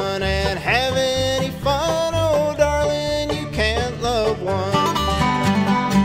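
Country/bluegrass music with banjo and guitar over a steady beat.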